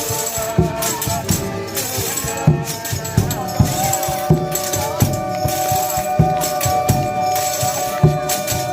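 Folia de Reis music: tambourine and rattles shaking over a regular beat, with long held notes sounding from about three seconds in.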